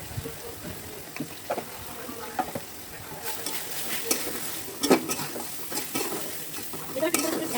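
Food sizzling in hot oil in a pan while it is stirred, the spoon or spatula scraping and knocking against the pan every so often, the knocks more frequent in the second half and loudest about five seconds in.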